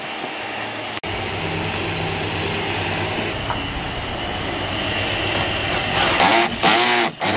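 Cordless drill running steadily as it bores out a stanchion-post hole in the boat's deck. It gets louder and changes pitch near the end as the bit works through.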